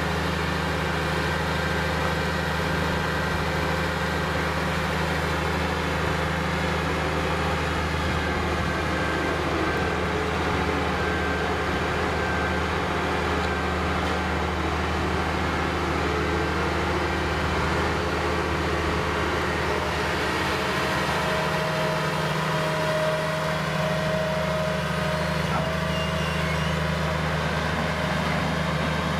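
New Holland skid-steer loader's diesel engine running steadily, with a faint whine joining about two-thirds of the way through.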